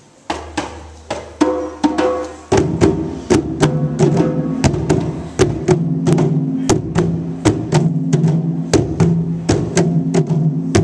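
Percussion ensemble starting a piece: struck pitched notes over a steady beat of sharp clicks. The full ensemble comes in about two and a half seconds in and plays a repeating pattern.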